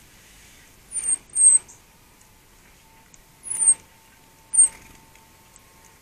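Small tits calling close by at a garden feeder: four short, high, downward-sliding notes, two about a second in and two more past the middle, each over a brief burst of noise.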